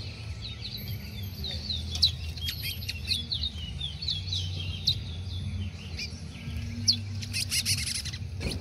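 Caged male twa-twas (large-billed seed finches) singing against each other: a rapid run of short, sharp whistled notes, with a burst of clicky notes near the end, over a low steady hum.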